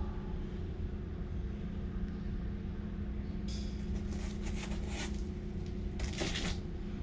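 Floor scrubbing machine's motor running with a steady low hum, the black scouring pad swishing over the floor in a few short bursts about halfway through and near the end.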